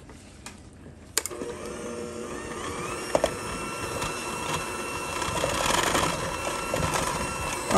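KitchenAid electric hand mixer switched on with a click about a second in, its motor whine rising in pitch as it speeds up and then running steadily, beaters working a thick cookie dough in a stainless steel bowl.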